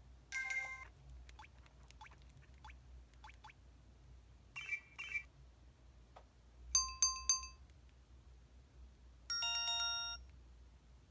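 EV-W250 mobile phone playing a series of short electronic notification and effect tones one after another: a brief chime near the start, two quick blips, a few bright ringing notes in the middle, and a chord that fades out near the end.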